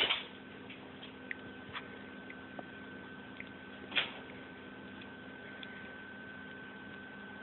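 Quiet room tone with a steady high-pitched whine and a few faint clicks, one a little louder about four seconds in.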